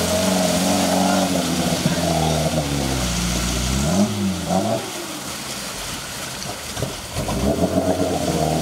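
Off-road 4x4's engine revving under load, its pitch rising and falling about four seconds in, then easing back before picking up again near the end.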